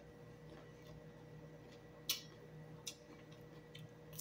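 Eating sounds: a few short, sharp, crisp clicks and crunches, one about two seconds in and the loudest at the very end, as a raw green vegetable is bitten. A faint steady hum runs underneath.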